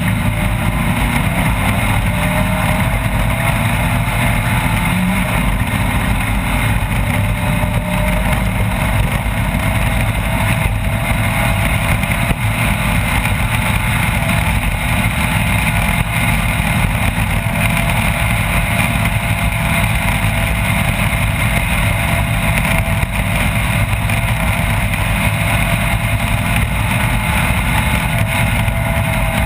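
Off-road race vehicle's engine running hard and steadily, its pitch drifting slowly up and down.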